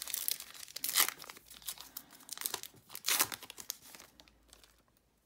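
Foil wrapper of a trading-card pack torn open and crinkled by hand, with loud rips about a second in and again around three seconds, fading to light crinkling near the end.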